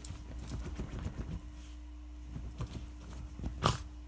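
A dog scrabbling and shuffling on bed covers: a quick run of scratchy rustles that thins out after about a second and a half, then one loud sharp thump near the end.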